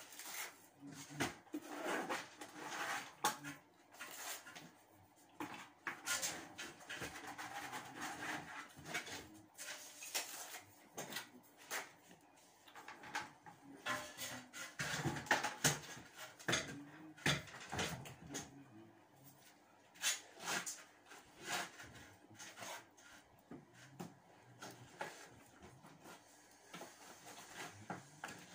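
Plastering trowel scraping and knocking against a plastic bucket and a hawk as plaster is scooped out, then scraping across a wall as it is spread: irregular scrapes and clacks.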